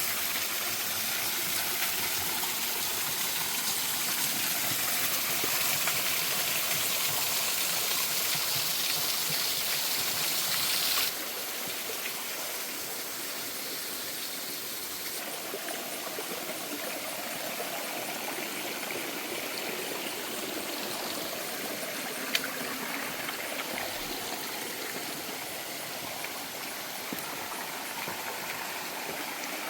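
Mountain waterfall and stream, water rushing steadily. The sound drops suddenly to a softer level about eleven seconds in, and there is a single sharp click about two-thirds of the way through.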